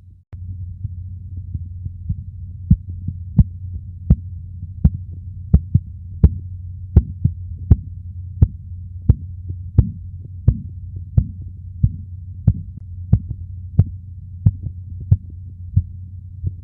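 Korotkoff sounds heard through a stethoscope during a blood-pressure measurement: sharp single taps with each pulse, about one every 0.7 seconds, faint at first and loud from about three seconds in, over a steady low hum.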